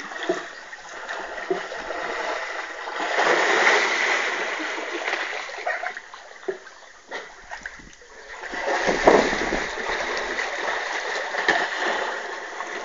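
Water splashing in a swimming pool as children swim and surface, loudest about three seconds in and again around nine seconds in.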